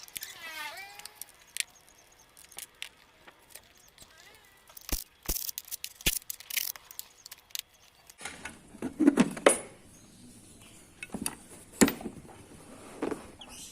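Scattered sharp clicks, knocks and metallic clinks, the loudest a few seconds from the end, with a brief run of falling chirps in the first second.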